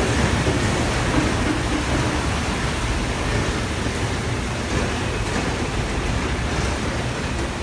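Typhoon wind and heavy rain, a steady noise with the wind buffeting the microphone.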